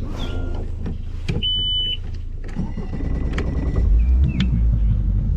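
Boat's outboard motor running below full throttle, a steady low drone that grows louder about four seconds in.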